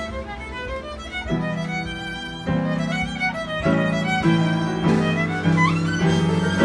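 Solo violin playing a melody live, accompanied by piano and bass guitar, with low sustained bass notes coming in about a second in.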